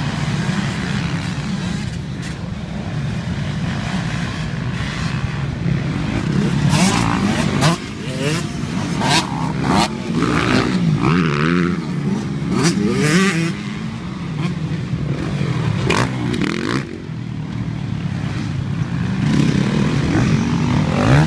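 Motocross dirt bikes riding a dirt track, their engines revving up and down through the gears. The sound is loudest in the middle, when two bikes pass close by.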